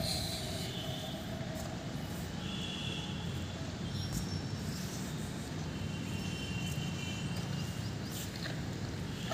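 Outdoor background noise: a steady low hum with a few short, high-pitched chirps over it.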